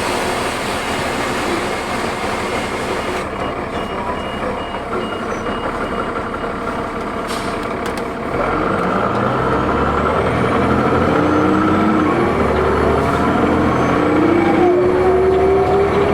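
Cummins ISL six-cylinder diesel engine of a 2004 New Flyer D40LF transit bus. It runs steadily for about eight seconds, then grows louder as the bus pulls away. The engine note and turbo whine rise steadily in pitch as it accelerates through the ZF automatic's gears.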